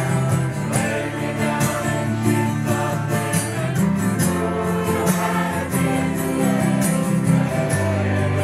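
A choir of many voices singing a song together, with instrumental accompaniment and a steady percussive beat.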